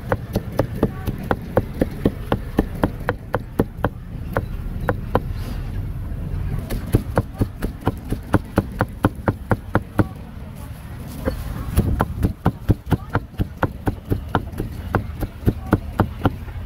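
Cleaver chopping grilled pork on a thick round chopping block: quick, even chops about three a second, pausing twice briefly, over a low steady rumble.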